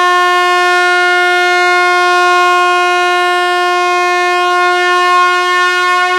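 Train horn sounding one long, steady blast at a single pitch.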